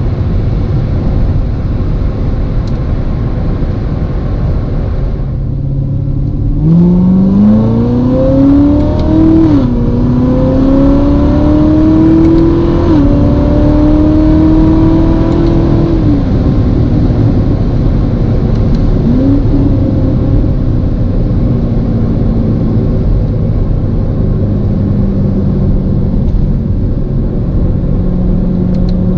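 2019 Corvette ZR1's supercharged 6.2-litre LT5 V8 accelerating without full throttle. Its note climbs and drops sharply at each quick upshift, three times, then holds a steady cruise. The revs step down once more near the end.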